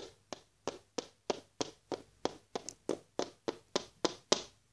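Clip-clop of hoofbeats: an even run of sharp taps, about three and a half a second, that stops near the end.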